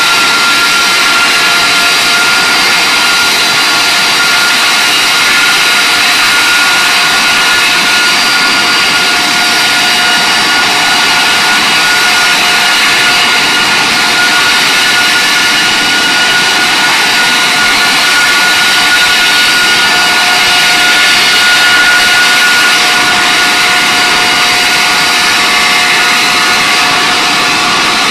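Rolls-Royce RB211-524GT turbofan on a Boeing 747-400 running steadily at high power during a ground engine run: a loud, even rushing noise with a steady whine over it.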